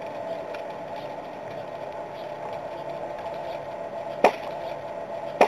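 A pitched baseball smacking once into the catcher's mitt about four seconds in: a called third strike. A second, smaller knock comes near the end, over steady outdoor ballpark background noise.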